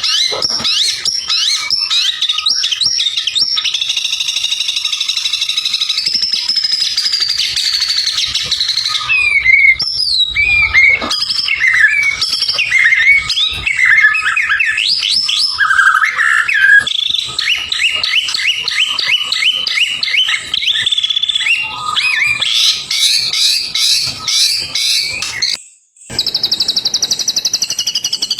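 White-rumped shama (murai batu) singing loudly and continuously: a varied run of rapid trills, chattering notes and whistled phrases. The song breaks off briefly near the end, then resumes as a fast, even trill.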